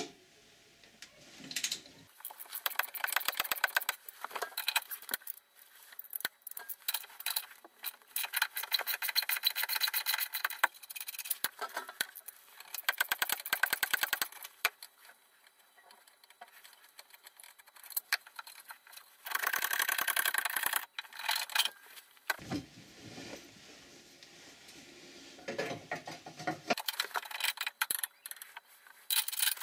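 Hand ratchet wrench clicking in several quick runs as engine-mount bolts are worked from under the car, with metallic clinks, rattles and a scrape in between.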